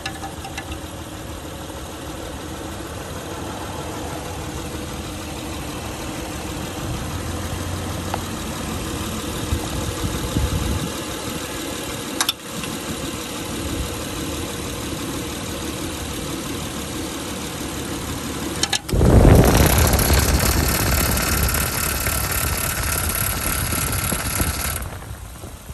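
Honda Pilot V6 running, with a loud noise from the engine bay that comes from a damaged cooling fan. About nineteen seconds in, a much louder rushing noise starts suddenly and lasts about six seconds before dropping away.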